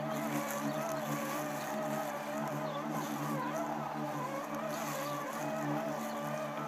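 Robomow robotic lawnmower's electric motors running as it drives across the grass and mows: a steady hum with a whine that wavers slightly in pitch.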